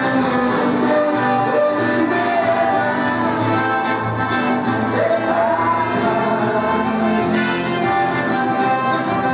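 Live sertanejo music: piano accordion and acoustic guitar playing over a steady beat, with a man singing.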